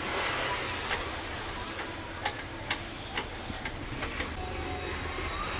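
A handful of sharp, irregular clicks and taps from a subwoofer speaker being handled and seated in a wooden box, over a steady background noise.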